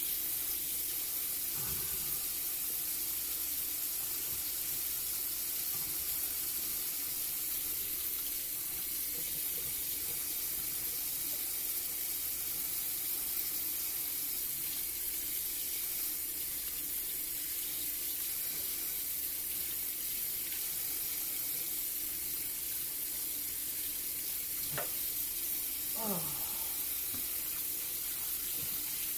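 Kitchen tap running steadily into a stainless steel sink, the water splashing over raw chicken gizzards being rinsed and cleaned by hand.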